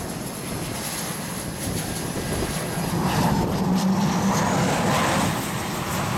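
F/A-18 jet engine noise, steady and growing louder about halfway through, with a faint rising whine.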